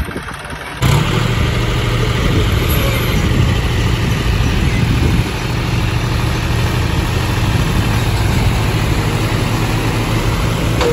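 Diesel tractor engines running steadily, with the sound jumping suddenly louder about a second in.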